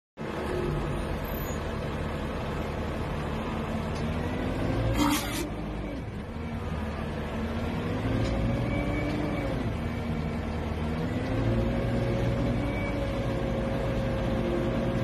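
Outdoor cattle feedlot ambience recorded on a phone: a steady low rumble with drawn-out wavering tones running through it, and a brief sharp clatter about five seconds in.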